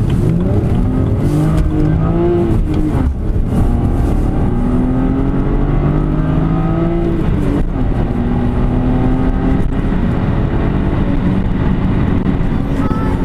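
BMW 330i E92's straight-six on its stock exhaust, accelerating hard. The engine note climbs in pitch through several pulls, each cut by a sudden drop as the gear changes, about three times.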